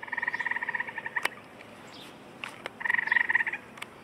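A frog calling: two fast pulsed trills, the first about a second long and the second shorter, a little over a second and a half apart.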